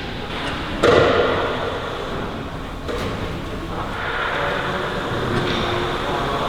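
A loud thump about a second in, then a smaller knock near the three-second mark, over steady workshop background noise.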